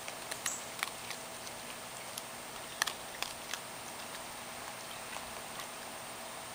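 Raccoon dabbling its front paws in a shallow dish of water: a handful of small splashes and clicks, the sharpest about three seconds in, over a steady background hiss.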